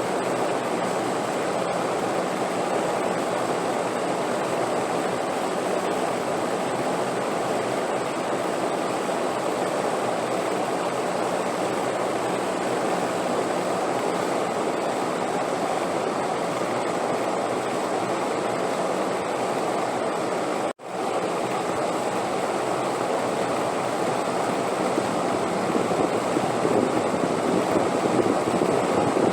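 Steady wind noise, an even rushing hiss with no gusts or other events. It cuts out for a split second about two-thirds of the way through and grows slightly louder near the end.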